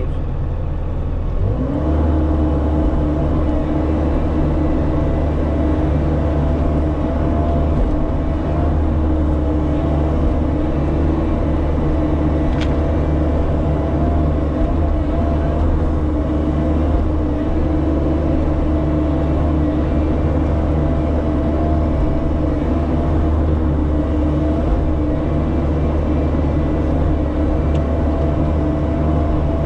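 Bobcat E50 mini excavator's diesel engine running steadily under load while digging, with a steady humming tone over it. The engine speeds up about a second and a half in and then holds.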